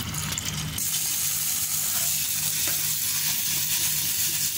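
Tap water running in a steady stream onto green lentils in a fine mesh stainless steel strainer in a metal sink, a steady splashing hiss as the lentils are rinsed.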